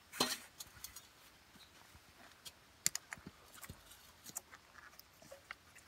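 Scattered light clicks and taps of metal hydraulic quick-connect couplers and hose fittings being handled and pushed together by hand, with a sharper clack at the very start.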